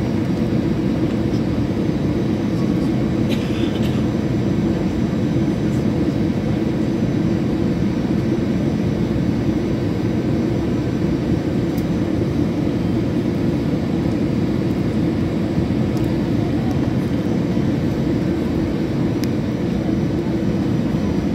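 Steady cabin noise inside an Airbus A320-214 airliner: an even rumble of its CFM56 jet engines and the airflow, strongest in the low range and unchanging throughout.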